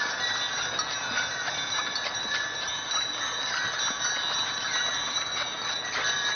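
Brass harness bells on a team of Percheron draft horses jingling and ringing steadily as the team moves along.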